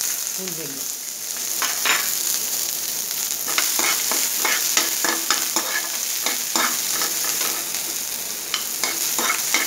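Chopped onions sizzling in hot mustard oil in a nonstick pan. A steel spoon scrapes and taps against the pan over and over as the onions are stirred, starting about a second and a half in.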